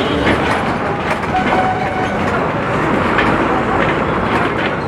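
Inside a moving bus: the engine and road noise make a steady rumble, with the body, window frames and fittings rattling constantly.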